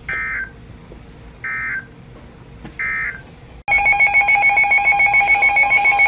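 NOAA weather radio sounds three short bursts of SAME digital data tones, the End-of-Message signal closing the warning broadcast. About three and a half seconds in, a weather radio's alert alarm starts: a loud, rapidly pulsing electronic beep.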